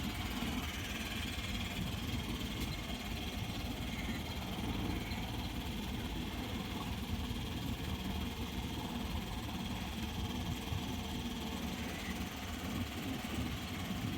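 Petrol engine of a small backwater tour boat running steadily under way, a continuous low hum.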